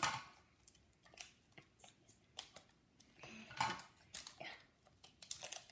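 Scissors snipping and a plastic toy wrapper crinkling as a cake-pop toy package is cut open, in irregular short clicks and snips.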